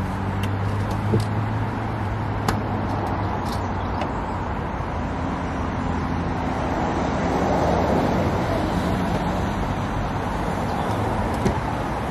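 Steady road traffic noise that swells as a vehicle passes about two-thirds of the way through, with a few light knocks from the van's rear doors and the canoe being handled.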